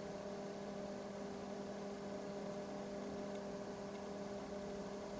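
Steady electrical hum from the running PM3320A digital storage oscilloscope, a few even tones over a faint hiss, unchanging throughout.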